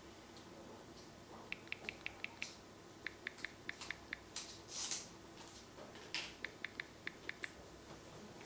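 Samsung Galaxy S21 Ultra's keypad click sounds as a PIN is tapped in on the touchscreen: three quick runs of short, high-pitched ticks, five or six to a run. A brief soft hiss comes a little before halfway.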